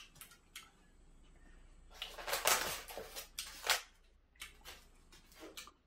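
Styrofoam packing box being handled and opened on a wooden table: a few faint clicks, then about two seconds in a loud stretch of squeaky foam rubbing and scraping as the lid and box are moved.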